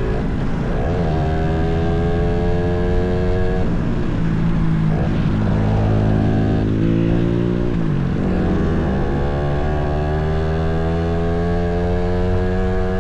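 Motorcycle engine running under way, its pitch climbing steadily as it gathers speed. The pitch drops twice, about four and eight seconds in, then climbs again.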